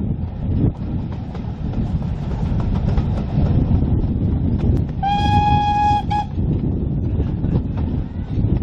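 Steady rumble of a moving train heard from inside a British Rail Mark 1 carriage. About five seconds in, the locomotive sounds one long steady high note lasting about a second, then a brief second toot.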